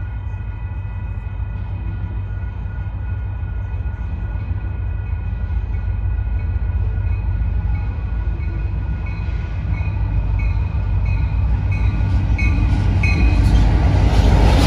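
Union Pacific diesel freight locomotives approaching, their low rumble growing steadily louder until the lead unit passes close by at the end. A grade-crossing bell rings over it with steady high tones, pulsing about one and a half times a second in the second half.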